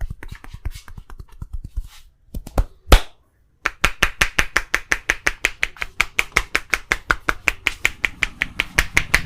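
Hands striking the body in rapid chopping massage strokes (tapotement), about seven a second. The rhythm breaks off around two seconds in for a few separate strokes and one loud smack, then resumes.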